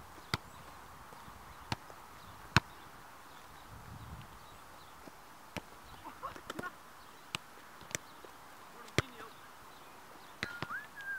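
Faint outdoor ambience with scattered sharp knocks, one of them a boot striking a football in the second half. A few short bird chirps and a whistled bird note near the end.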